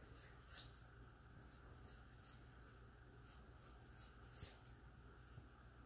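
Faint scissor snips cutting through a thick ponytail of hair, a series of irregular small scratchy cuts.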